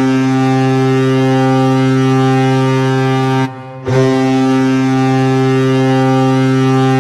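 Colorado Avalanche arena goal horn sounding in two long, steady blasts, with a short break about three and a half seconds in.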